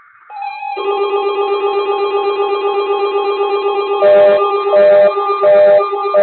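Electronic music opening on a chord of held, trilling synthesizer tones. About four seconds in, a beat of louder pulses joins, roughly every 0.7 s, leading into guitar music.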